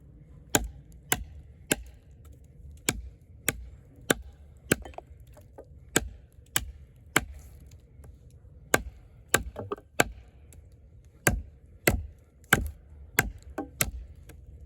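Eafengrow EF-143 fixed-blade camp knife with a 6.7-inch AUS-10 steel blade chopping into a wooden log: a run of sharp strikes into the wood, roughly two a second with brief pauses.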